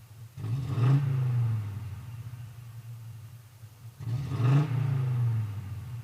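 Car engine idling steadily and revved twice, about three and a half seconds apart, each rev rising quickly and settling back to idle.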